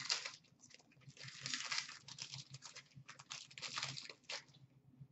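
A hockey card pack's wrapper being torn open and crinkled, with a longer tear about a second in, then short rustles of wrapper and cards being handled.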